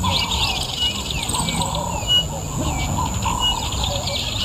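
A chorus of wild birds calling, with many short overlapping chirps and whistles throughout.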